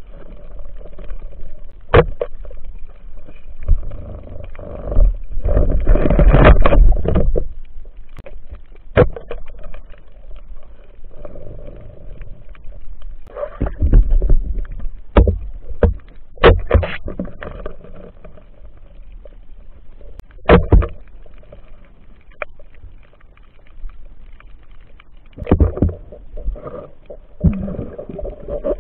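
Muffled underwater sound picked up through a camera's waterproof housing: a rumbling wash of water that swells a few times as the diver moves, with scattered sharp clicks and knocks.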